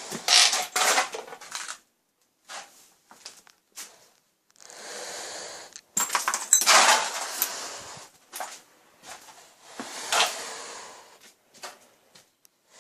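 Irregular knocks, clatters and scrapes of handling and movement, with a few longer hissing stretches and the loudest clatter about six to eight seconds in.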